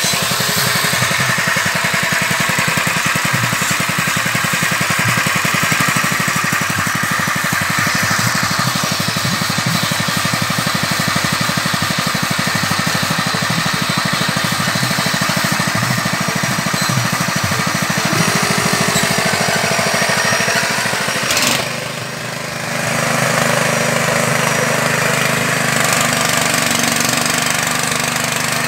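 Small engine running steadily, driving a fish-feed pellet machine. About two-thirds of the way through the sound dips briefly, then settles into a steadier, lower hum.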